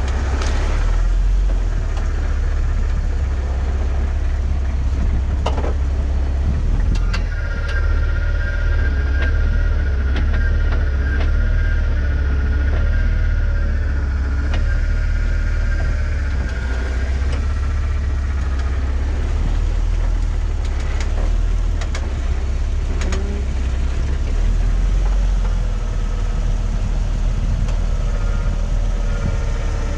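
Off-road vehicle engine running at crawling speed, with a steady low rumble. A wavering high whine joins it from about a quarter of the way in to about halfway, and a few sharp knocks sound as the tire works along the wet rock.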